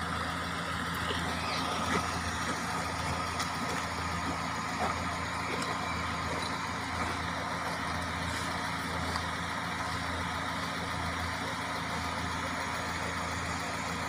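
An engine idling steadily: a low, even hum over a constant hiss. No cat yowls or screams stand out above it.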